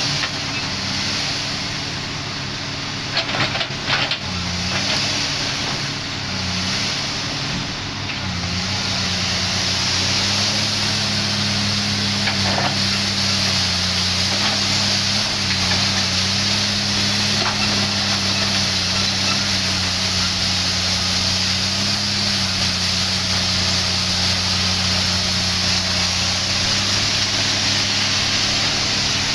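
Komatsu PC300 hydraulic excavator's diesel engine running under working load as the machine swings, digs and dumps coal into a dump truck. The engine note rises and falls with the load, over a steady hiss, with a couple of sharp knocks about three to four seconds in.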